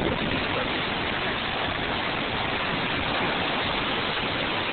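Steady rushing and splashing of floodwater churned up by car tyres driving through a flooded street.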